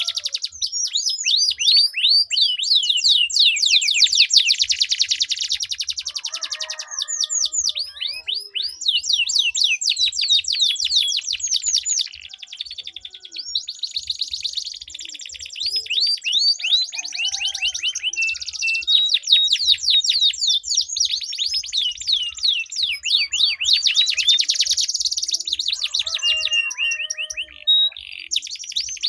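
Domestic canaries singing long rolling trills: continuous runs of rapid, high repeated notes that switch speed and pitch every second or two.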